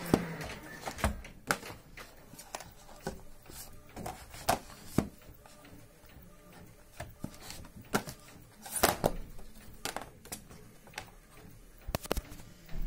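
Stiff plastic laminated sheet crackling and clicking as it is handled and flexed, in irregular sharp crinkles, the loudest about a second in and near nine seconds in.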